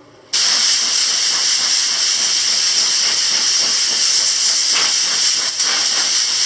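Compressed air from an air compressor blow gun hissing loudly and steadily as it blasts water out of a freshly washed electrostatic furnace air filter. The hiss starts abruptly about a third of a second in.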